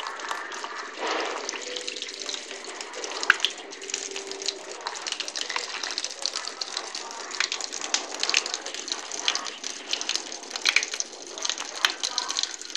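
Running tap water splashing onto a smartphone and a wet tiled floor: a steady spatter of falling drops, with one sharp knock about three seconds in.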